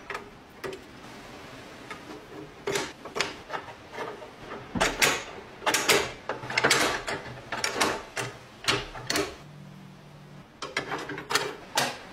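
Steel lock parts clicking and clacking as they are handled and fitted into a box lock's steel case: a run of short, sharp metal clicks, busiest in the middle and again near the end.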